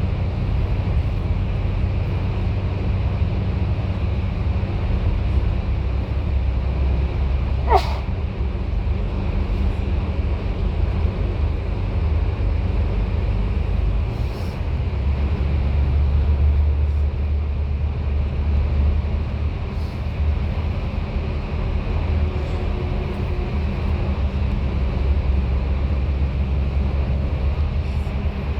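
Bus engine and road noise heard from inside the cabin: a steady low drone that grows louder for a few seconds midway. There is a brief squeal about eight seconds in.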